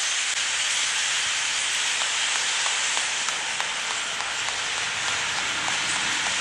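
A huge flock of thousands of blackbirds calling at once: a dense, steady hiss-like chatter with faint individual chips showing through.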